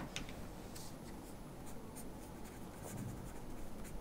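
Faint sound of a pen writing on paper.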